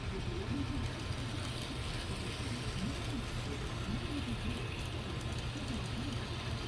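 N scale model train running on the layout: a steady low hum, with faint voices in the background.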